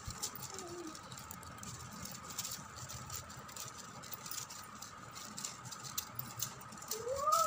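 Faint crackling rustle of paper strips being pinched and twisted by hand, over a steady high whine in the background. A short pitched call that rises and then falls comes in near the end.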